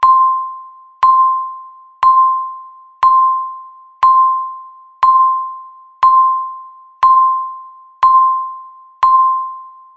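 Countdown timer beeps sounding once a second: ten short, bell-like tones at one pitch, each struck sharply and fading before the next. They tick off the final seconds before the alarm goes off.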